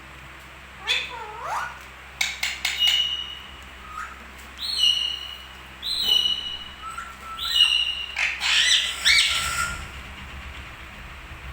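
Pet parrot calling: a couple of rising whistles in the first two seconds, a quick run of clicks, then a series of short squawk-like calls, each ending on a steady high note, spaced about a second or so apart.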